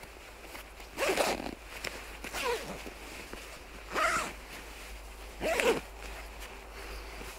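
Zipper on a Pinewood Hemse anorak pulled in four short strokes, about a second and a half apart, each one sliding in pitch.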